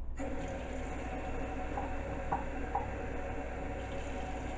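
Kitchen tap turned on just after the start, water running steadily into a measuring cup.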